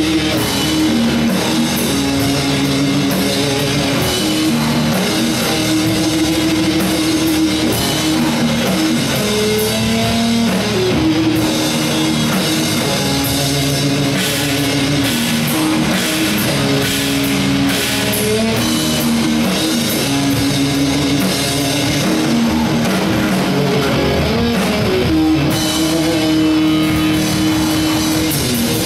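Live rock band playing loudly and without pause: electric guitars holding and shifting riff notes over a drum kit.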